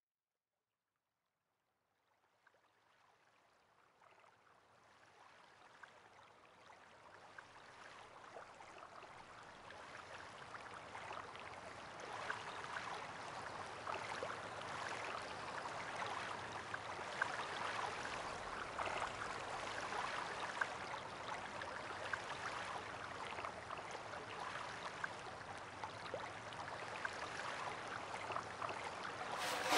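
Rain falling, fading in from silence about five seconds in and growing to a steady level by about twelve seconds. Daf frame-drum strokes break in at the very end.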